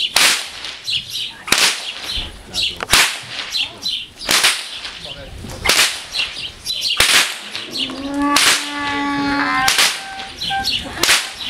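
Hungarian herdsman's stock whip cracked over and over in a steady rhythm, one sharp crack about every second and a half. Each crack is the whip's short plastic end string breaking the sound barrier.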